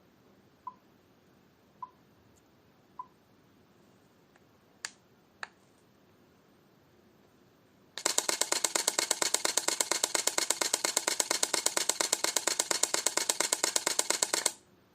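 Camera: three short beeps about a second apart, then two single shutter clicks about half a second apart, then a rapid continuous-shooting burst of shutter clicks lasting about six seconds that stops suddenly.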